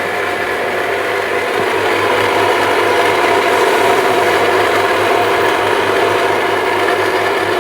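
Electric drill running steadily at a constant pitch while boring an axle hole for a wheel in wood, with a regular low throb setting in about a second and a half in.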